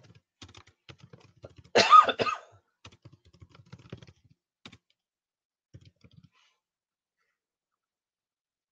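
Typing on a computer keyboard: a run of light key clicks that stops about six seconds in, with a brief loud cough about two seconds in.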